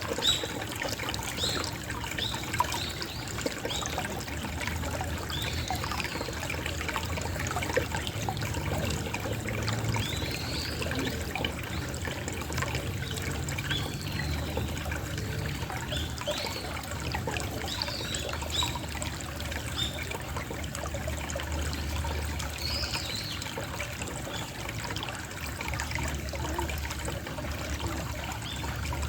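Small stream of water trickling steadily, with many quick little gurgles and plinks.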